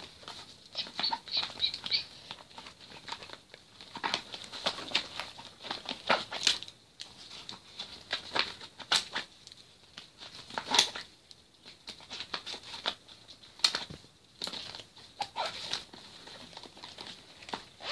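Plastic pens and pencils clicking against each other and rustling against a fabric binder as they are slid back into its pen loops one after another: a scatter of sharp clicks and short fabric rustles.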